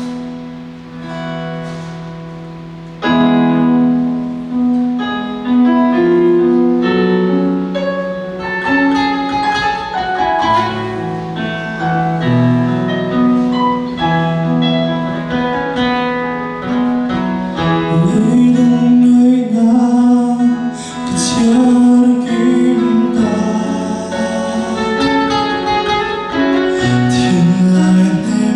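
A song with guitar accompaniment and a singing voice, growing louder about three seconds in.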